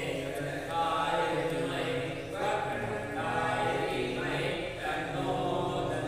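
Voices chanting a Hindu aarti hymn together, phrase after phrase, over a steady low hum.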